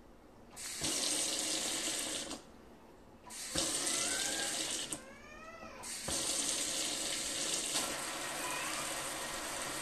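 Water from a Brizo 64025LF pullout kitchen faucet running into the sink. It is turned on about half a second in, off briefly between about two and a half and three seconds, and on again, with a short dip near five seconds and then a steady flow. The sprayhead switches between a single stream and a spray.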